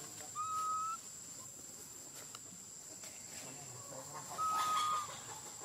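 Infant macaque giving two long, high, steady coo calls, each about half a second long and about four seconds apart.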